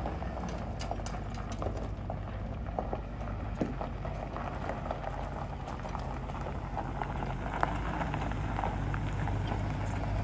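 The 6.0-litre Vortec V8 of a 2003 Chevrolet Silverado 2500HD runs with a steady low hum as the truck rolls slowly over gravel, its tyres crunching with scattered small pops from the stones. The engine sound grows a little louder near the end as the truck comes closer.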